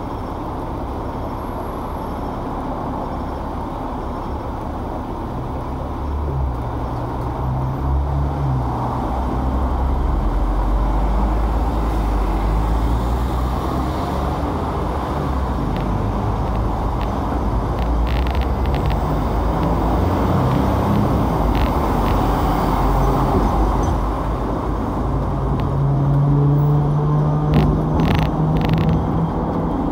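Hong Kong double-decker tram heard from on board: a low rumble and motor hum that grows as the tram gets moving along the rails, with street traffic around it. A few sharp clicks come near the middle and again near the end.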